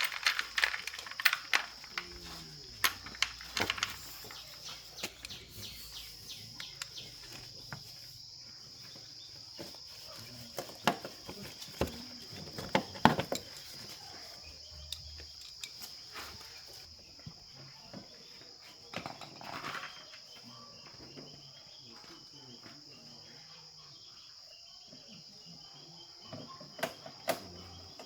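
Steady high-pitched insect chirring, with scattered sharp clicks and knocks over it.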